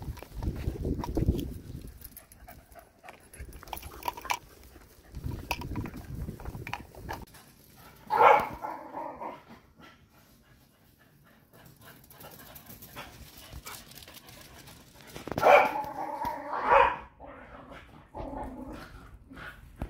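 Dog vocalising in two loud bouts, a short one about eight seconds in and a longer, broken run from about fifteen to seventeen seconds.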